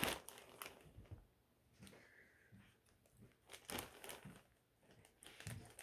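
Faint, intermittent crinkling of a see-through plastic bag as it is handled and opened, with a few soft scattered rustles.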